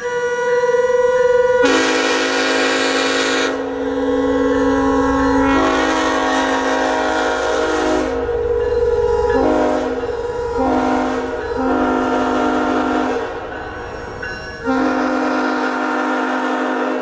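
Multi-chime air horn sounding a long series of sustained blasts. It starts on a single tone, then plays full chords that shift as chimes cut in and out, with short breaks between some blasts.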